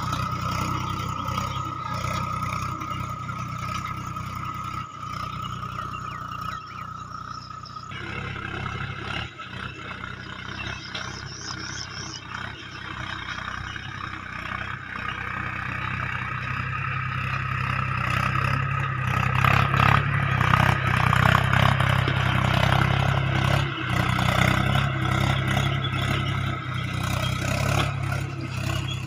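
Mahindra tractor's diesel engine running steadily under load as it pulls an implement through tall grass, with clatter over the drone. A steady high whine sits over the engine for the first quarter. The engine sound grows louder past the middle.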